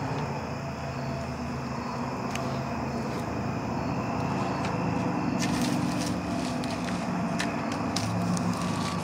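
Wood campfire crackling, with scattered sharp pops that come thickest a little past the middle and near the end, over a steady low rumble.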